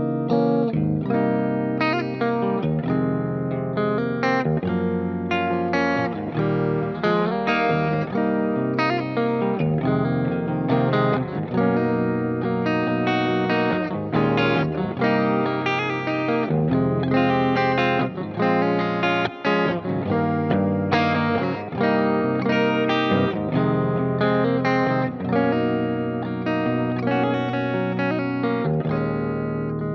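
PRS SE NF3 electric guitar playing a picked melodic line of many quick notes through an amp-simulator plugin with delay and reverb, over a backing track with bass.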